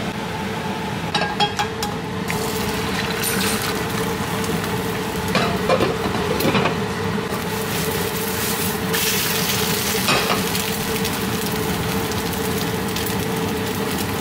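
Eggs frying in a pan over a gas burner: a steady sizzle, with a few sharp clicks and knocks scattered through it.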